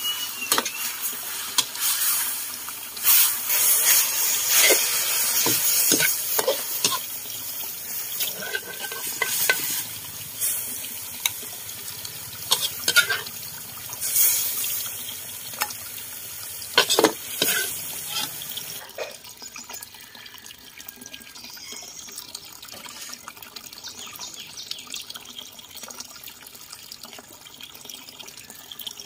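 Greens and sliced beef sizzling as they are stir-fried in a large steel wok, with a metal ladle now and then clanking and scraping against the pan. The sizzling stops about two-thirds of the way through, leaving a much quieter background.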